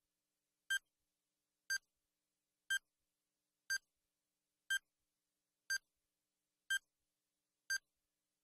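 Countdown timer sound effect beeping once a second: eight short, identical high beeps with silence between them, ticking off the last seconds of a quiz timer.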